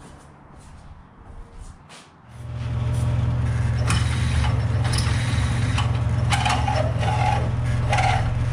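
Mill-drill motor starts about two seconds in and runs with a steady hum while drilling metal held in the vise, with short spurts of spray from a can of cutting fluid.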